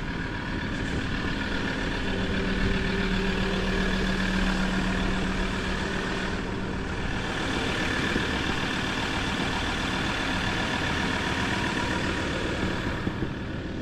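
An engine idling steadily, a constant hum with no change in speed.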